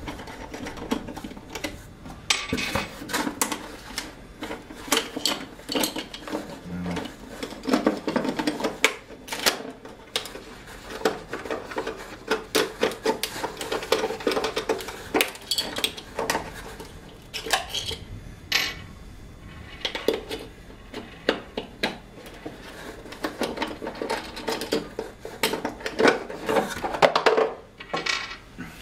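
Metal door-lock parts clinking and clicking as they are handled and worked loose from their packaging: a long run of short, irregular knocks and clinks.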